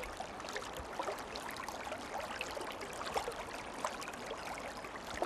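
A small stream of water babbling steadily over stones, with many small gurgles and splashes.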